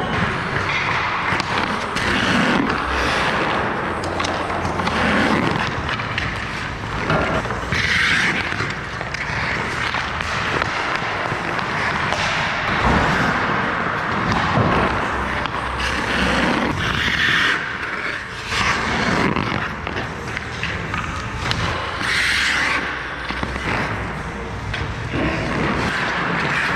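Steel blades of new TRUE TF9 hockey skates carving and scraping across ice in repeated strides, with a few louder scraping bursts and occasional knocks.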